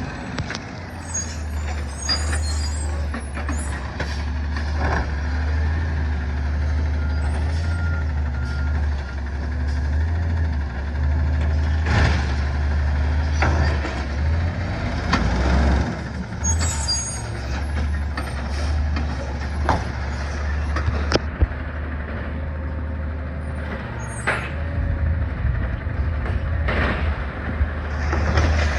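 Recycling truck's engine running with a steady low rumble, with hisses of air from its air brakes near the start and again about halfway through, and scattered sharp metallic knocks.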